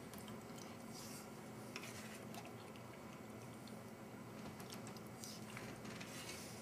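Faint scrapes and light clicks of a plastic spork scooping rice pudding from a stainless steel compartment tray, with quiet eating sounds, over a low steady hum.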